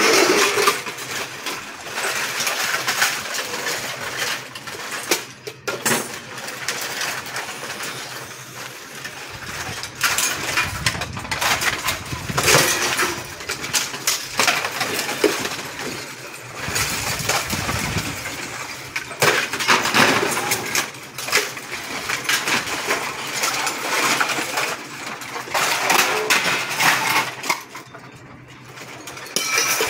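Continuous, irregular clinking and clattering of hard objects knocking together.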